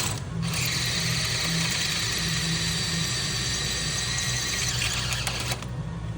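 Electric drill boring into a steel bolt head to drill the head off a stuck bolt: a steady high grinding whine that starts about half a second in and stops about five seconds later.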